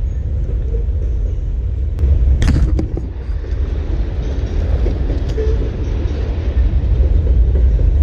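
Steady low rumble of wind buffeting the microphone, with a sharp knock about two and a half seconds in.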